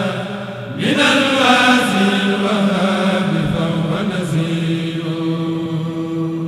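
Religious chanting by a voice, in long held notes with a rising glide about a second in.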